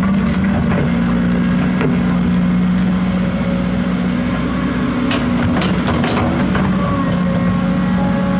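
Heavy construction machine's diesel engine running steadily at one even pitch, with a few short sharp clanks about five to six seconds in.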